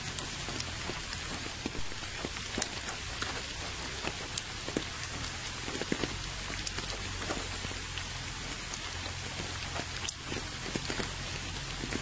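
Steady rain falling into a puddle of standing water: a constant hiss with scattered individual drops splashing and ticking.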